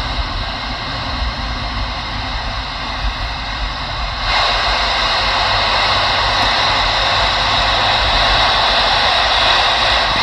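Steady road and engine rumble inside a moving vehicle's cab, with hiss from a Uniden CB radio's speaker over it that steps up suddenly and stays louder from about four seconds in.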